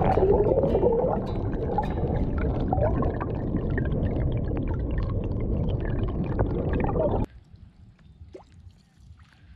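Loud, muffled water gurgling and sloshing that cuts off suddenly about seven seconds in, followed by faint lapping.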